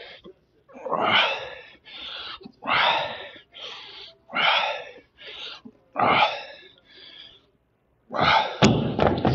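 Heavy breathing in time with alternating dumbbell curls: a forceful breath out with each rep, followed by a shorter breath in, about every second and a half. Near the end come a louder, longer breath and a sharp click.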